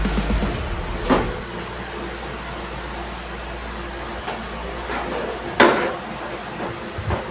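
A few sharp knocks and clicks, a clear one about a second in and the loudest just past five seconds, over a steady low hum.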